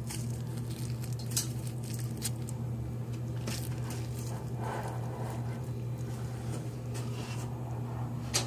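Slime being squeezed and stretched by hand, giving scattered small wet pops and crackles over a steady low hum.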